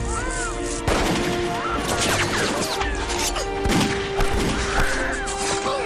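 Several sharp rifle shots and impacts from a film battle scene, over dramatic background music.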